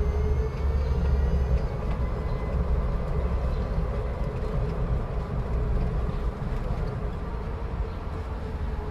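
Vehicle rumbling deep and steady, with a faint wavering whine above it. It eases slightly after the first couple of seconds.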